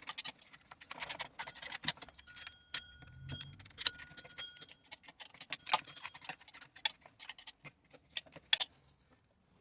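Hand tools scraping, tapping and clicking against a chainsaw's metal casing while cleaning caked oil and dirt off it: irregular sharp clicks, some with a short metallic ring.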